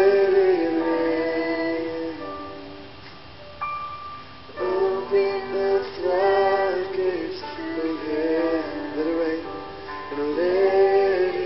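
Live worship band music: women's voices sing long held notes over keyboard and electric guitar. The sound thins for a couple of seconds, and the singing swells back in about four and a half seconds in.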